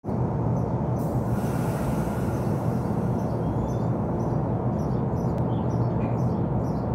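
NJ Transit Multilevel passenger train: a steady low hum and rumble, with faint high chirps repeating through the second half.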